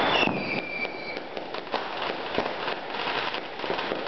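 Fireworks and firecrackers going off, a dense crackle of many quick pops. A thin whistle, sliding slightly down in pitch, sounds for about a second just after the start.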